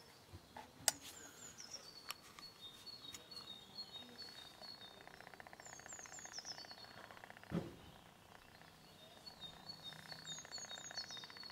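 A songbird sings the same short phrase three times, high notes stepping downward. A faint rapid buzz runs under it at times, and there is a sharp click about a second in and a dull thump past the middle.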